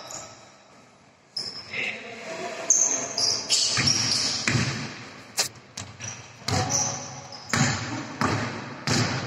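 Indoor basketball game sounds: after a brief lull, a basketball bouncing on the court, short high squeaks and players calling out.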